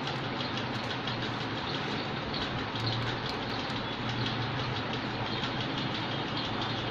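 Steady rushing background noise with a low hum underneath and a few faint light clicks.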